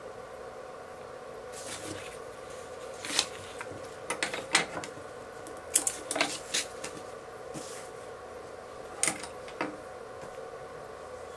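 A sheet of paper is handled with short rustles and sharp clicks, and small scissors snip a sewing thread. Underneath is a steady faint hum.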